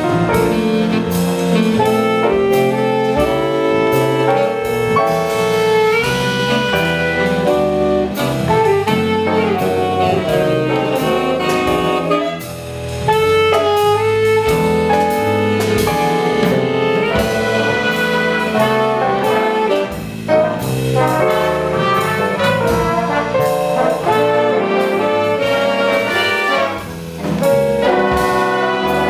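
Jazz big band playing: the saxophone section and trumpets and trombones in full ensemble over drums, with three brief breaks between phrases.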